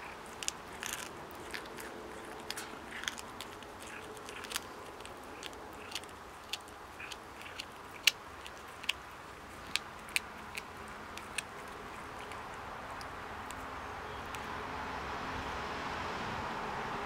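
A cat chewing a woodland jumping mouse, its teeth crunching through the small bones in irregular sharp cracks, sometimes several a second, with the loudest crack about eight seconds in. The crunching stops at about eleven seconds, and a steady background drone swells over the last few seconds.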